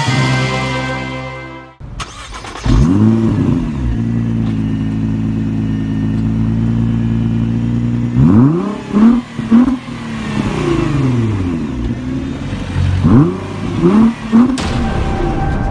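Car engine starting, idling steadily, then revved in two sets of quick blips, about three each, the first about eight seconds in and the second near the end.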